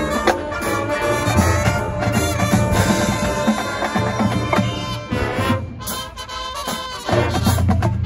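High school marching band playing loud sustained brass chords over drums and front-ensemble percussion. The sound thins briefly around six seconds in, then the low brass and bass drums come back in strongly about a second later.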